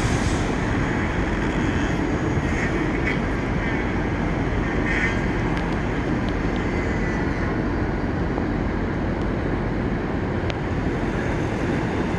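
Steady low rumble of downtown city background noise, such as traffic from the streets below, unchanging throughout.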